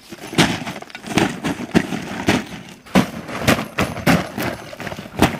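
Footsteps in sandals crunching on dry, cracked soil and dry grass, about two steps a second, somewhat uneven.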